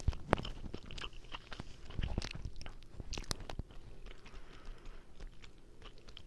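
Close-miked chewing of linguine carbonara: wet mouth clicks and smacks, busiest in the first three seconds or so, then softer, sparser chewing.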